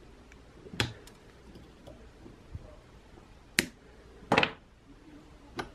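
A few sharp metal clicks, about four in all, the third a brief rattle of several, as a pointed tool works inside the burner head of an old gasoline blowtorch.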